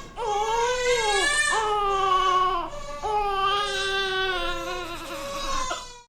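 Newborn baby crying: one long cry, a short break for breath about three seconds in, then a second long cry that cuts off near the end.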